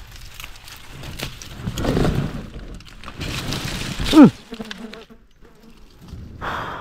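Dwarf honeybees buzzing around the nest amid bursts of noise, with a short, loud squeal falling steeply in pitch about four seconds in.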